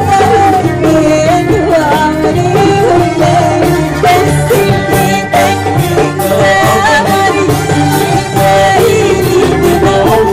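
A woman singing an Arabic song through a microphone over a live band of violins and keyboard, amplified through stage speakers, with a steady beat.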